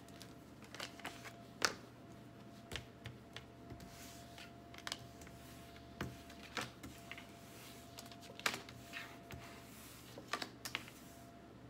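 Tarot cards being dealt from a deck and laid down on a tabletop one after another: irregular light clicks, taps and card snaps, the sharpest about a second and a half in and again after about eight seconds.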